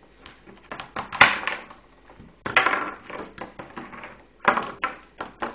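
Hard plastic Schleich animal figurines tapping and clattering on a hard surface as they are moved about: an irregular series of clicks and knocks, with a few louder knocks about a second in, at two and a half seconds and at four and a half seconds.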